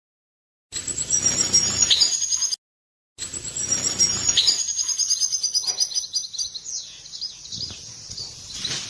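European goldfinch twittering, a rapid run of high chirps and trills. The sound cuts out completely twice for under a second.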